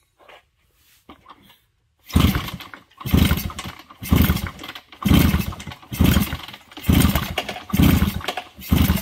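1969 Yamaha DS6 two-stroke twin being kicked over with its spark plugs out, in about seven kicks roughly one a second starting about two seconds in. It is a compression test on the left cylinder, whose gauge comes up to about 115 psi, which the owner calls not bad.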